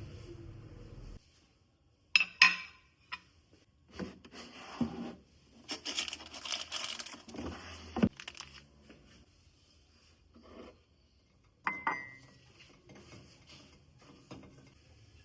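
Kitchen dishes and utensils being handled: scattered sharp clinks and knocks with some scraping, and one metallic clink that rings briefly near the end. A steady low hum stops about a second in.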